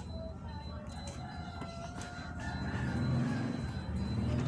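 A rooster crowing in the background, with a low steady motor hum that grows louder about three seconds in.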